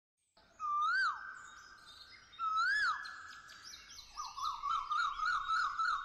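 Whistled, bird-like chirp sound effect with echo: two swooping calls that rise and fall, then a quick warbling trill of short rising chirps, about four or five a second.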